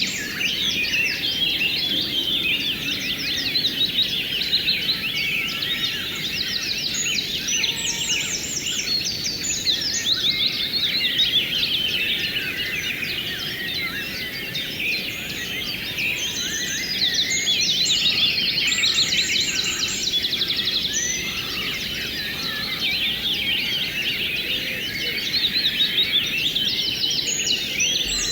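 A dense chorus of many small birds chirping and trilling over one another, over the steady rush of flowing river water.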